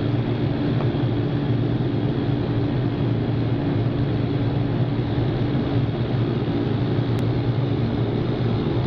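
Cessna Conquest's twin turboprop engines and propellers running at steady high power during the takeoff roll, heard inside the cabin as an even drone with a low propeller hum.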